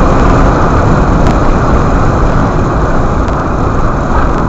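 Moving Honda car heard from inside the cabin: loud, steady road and engine noise.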